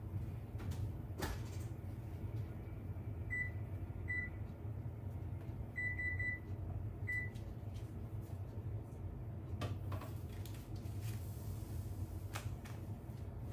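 Electric range's control panel beeping as its keys are pressed: one short high beep, another, a quick run of four, then one more. A low steady hum and a few light knocks run underneath.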